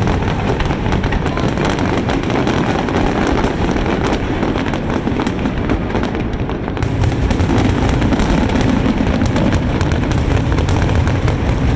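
Fireworks display going off in a dense, continuous barrage of booms and crackling reports, growing a little louder about halfway through.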